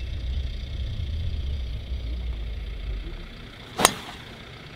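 A driver striking a golf ball off the tee: one sharp crack about four seconds in. Before it, a low rumble fades out.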